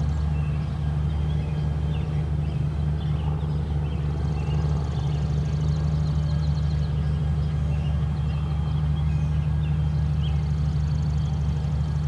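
Soundmaster 115 outdoor warning siren sounding its steady Alert signal, a continuous, unbroken tone. Faint bird chirps sound over it.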